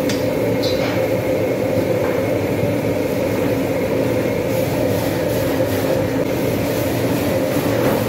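Steady roar of a commercial gas wok burner running at full flame, with a couple of light clinks of a ladle against the wok near the start.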